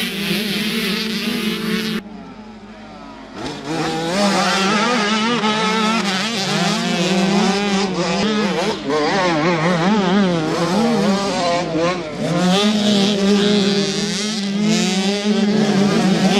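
Mini 65 motocross bikes' two-stroke engines revving hard, the pitch climbing and dropping constantly with the throttle. The sound drops suddenly about two seconds in and comes back loud a second and a half later.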